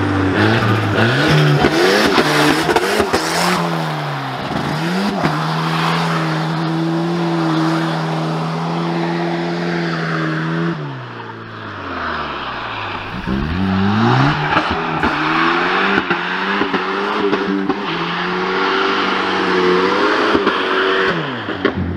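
Volvo 940's engine revved hard, climbing in steps through the gears and then held at high revs. About halfway through the revs drop away, then the engine is revved up again and held high.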